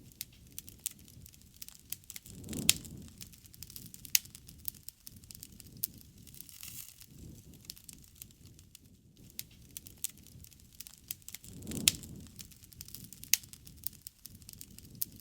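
Wood campfire crackling, with frequent sharp pops and snaps. Two soft low whooshes of flame swell up, about two seconds in and again near twelve seconds.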